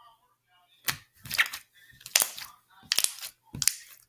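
Clear slime being squeezed and popped by hand: a series of about five sharp pops, starting about a second in and coming roughly every two-thirds of a second.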